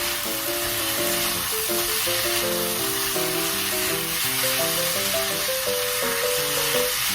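Food sizzling steadily in a hot frying pan as japchae ingredients cook. Background music runs underneath, a melody of short, clear notes.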